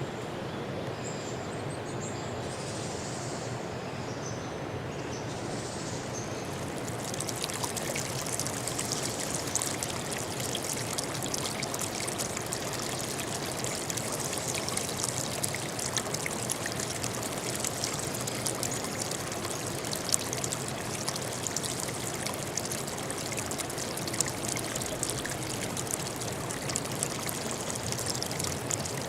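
Stream water running and trickling steadily. About seven seconds in it becomes louder and brighter, with many small splashes.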